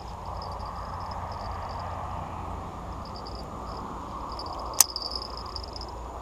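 Outdoor ambience: insects chirring in short, broken pulses over a steady background rush, with one sharp click about five seconds in.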